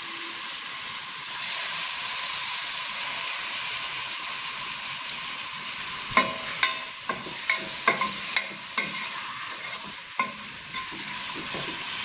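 Beef searing in a little ghee in a granite-coated pot: a steady sizzle. From about halfway through, a run of sharp knocks and clacks comes as more meat goes into the pot and is stirred.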